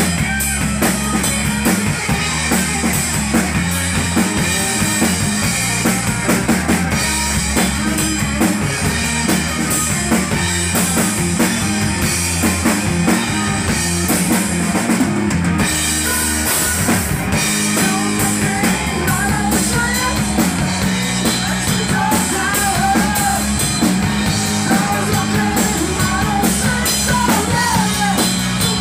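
Rock band playing live: drum kit with bass drum and cymbals driving under bass and electric guitar, loud and steady. A wavering higher melody line comes in partway through.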